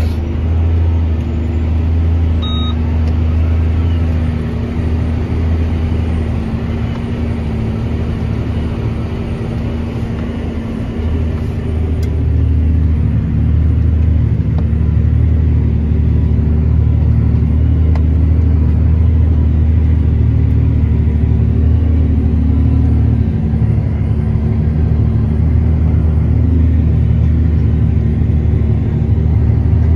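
CLAAS tractor's diesel engine running steadily under the load of a deep-tillage implement, a low drone heard inside the cab. It grows a little louder about halfway through.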